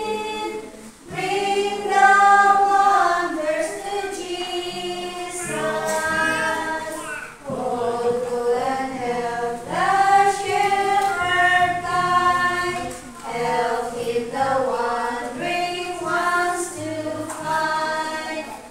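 A small group of women singing a hymn together, in long phrases with short breaks for breath about a second in and again near the middle.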